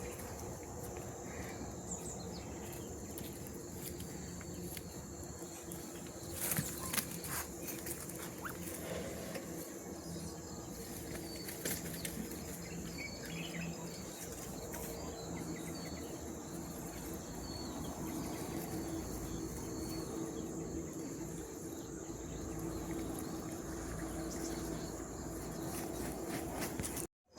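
Steady high-pitched insect chirring over rural outdoor background noise, with a few short clicks or knocks about seven seconds in.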